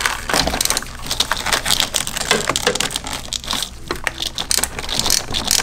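Ratcheting box-end wrench clicking in a fast, uneven run as a 13 mm master cylinder mounting nut is backed off its stud.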